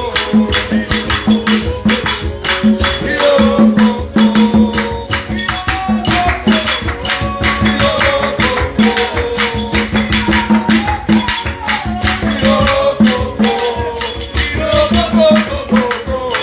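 Upbeat worship music: a fast, rattling shaker and tambourine beat over a repeating pulsed bass note, with a wavering melody line above.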